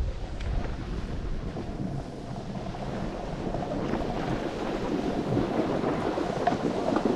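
Wind buffeting a moving 360 camera's microphone while snowboarding downhill, with a low rumble at first. About halfway in, the grainier hiss of the snowboard sliding over snow builds up.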